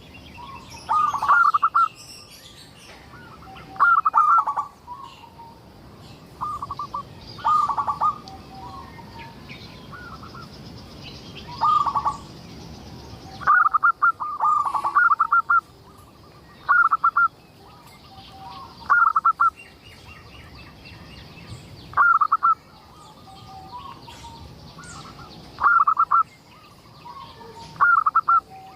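Zebra dove (perkutut) singing its stuttering cooing song. Short, loud bursts of rapid coos repeat about every two seconds, over fainter high chirps.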